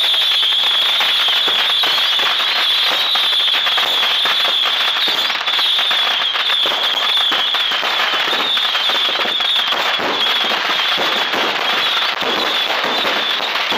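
Fireworks firing from the ground in quick succession: a dense, unbroken stream of crackling pops over a high, wavering whine.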